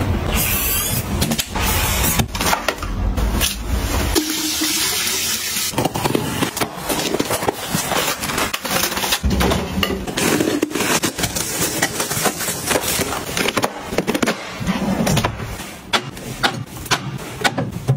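Handling sounds of plastic packaging rustling and crinkling, with many short taps and clicks as items are picked up and set down.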